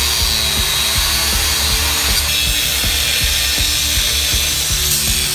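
Corded angle grinder running steadily under load, its disc cutting into rusted steel at the truck's rear leaf-spring mount.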